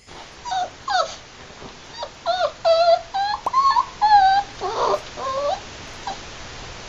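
Puppy whining: a string of short, high, wavering whimpers that stop about five and a half seconds in.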